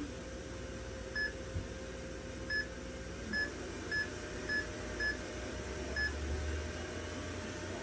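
Key-press beeps from an in-clinic blood chemistry analyzer's touchscreen keypad: seven short, identical high beeps, unevenly spaced over about five seconds, one for each tap on the screen.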